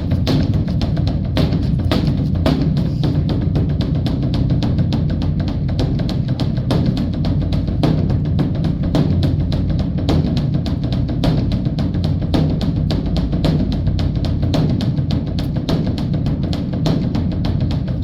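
Rapid, continuous drumming on a large drum, several strokes a second without a break, of the kind played on a Korean Buddhist temple's dharma drum (beopgo) in the ritual that leads up to the bell.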